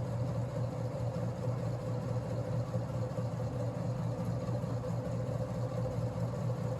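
Antique Westinghouse ceiling fan running steadily at high speed: a constant motor hum over a noisy whir, the bearings worn and described as a mess, pretty noisy.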